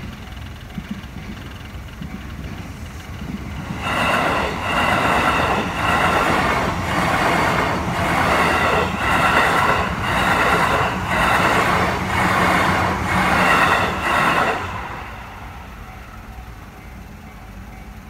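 JR Jōban Line E531-series electric train passing over a level crossing: it rises in about 4 seconds in, runs loud for about ten seconds with a rhythmic clatter of wheels over rail joints about once a second, and fades off abruptly near 15 seconds. The crossing's warning bell rings faintly before the train arrives and after it has passed.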